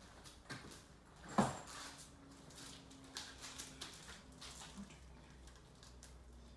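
Handling of a cricket bat: scattered light clicks and rustles, with one sharp knock about a second and a half in.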